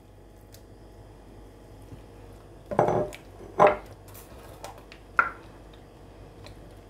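Kitchen clatter of a bowl and a wooden spoon knocking against an enamelled cooking pot full of thick soup: a few sharp knocks about three seconds in, then a single clink with a brief ring a couple of seconds later.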